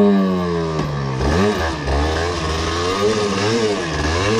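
Yamaha TDR 125's two-stroke single-cylinder engine revving up and down over and over, its pitch rising and falling about five times as the throttle is worked riding off-road.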